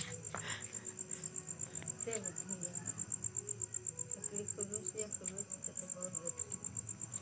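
Cricket chirping: a steady, high-pitched pulsing at about eight pulses a second. A short sharp knock comes right at the start.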